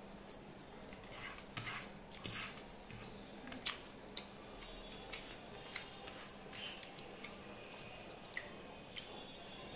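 Faint, scattered soft squishes and clicks of eating by hand: fingers mixing and scooping rice and curry on a ceramic plate, with chewing.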